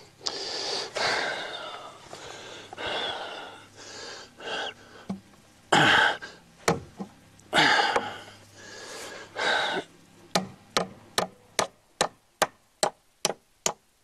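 Hammer tapping a nail into a wooden 2x6: a quick, even run of light taps, about two to three a second, over the last few seconds. Before that, irregular breathy sounds and rustling.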